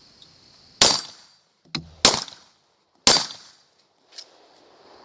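Three suppressed gunshots, a little over a second apart, each followed by a short echoing tail. A fainter click falls between the first two.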